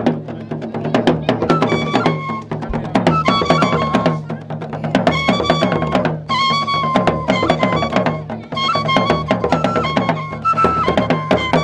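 Gurunsi traditional drumming: several skin-headed hand drums beaten in a dense, fast rhythm. Over it come repeated high, steady piping notes of about a second each from small wind instruments.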